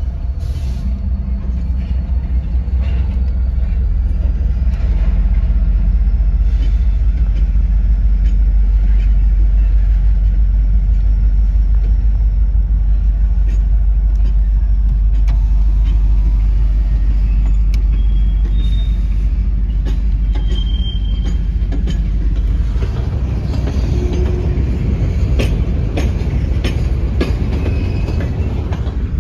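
A diesel-hauled freight train of empty hopper cars rolling past, with a deep, steady rumble. About two-thirds of the way through, the rumble eases and the clatter and repeated clicks of the empty cars' wheels over the rail joints come to the fore.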